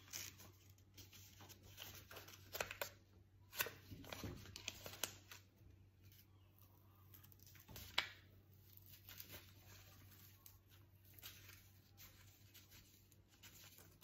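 Faint rustling and tearing of a paper template being pulled off a cloth epaulette, with scattered small handling clicks; the sharpest click comes about eight seconds in.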